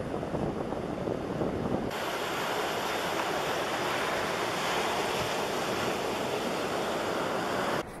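Ocean surf washing on a beach, with wind buffeting the microphone. About two seconds in, the sound changes abruptly, losing its low rumble and turning brighter and hissier. Just before the end it drops off suddenly.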